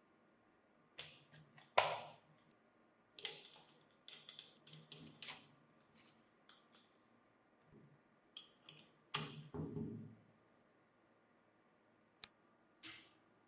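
Handling noises: a scattered series of short clicks, knocks and brief scrapes, as of parts and tools being picked up and set down, with the loudest knock about nine seconds in. No motor is running.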